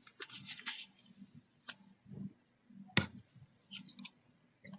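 Light, scattered clicks and taps from hands working on a laptop, with a sharper single click about three seconds in.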